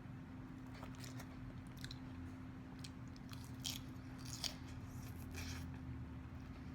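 A person chewing a mouthful of Caesar salad close to the microphone, crisp lettuce and croutons crunching in short crackly bursts, a few sharper crunches around the middle. A steady low hum runs underneath.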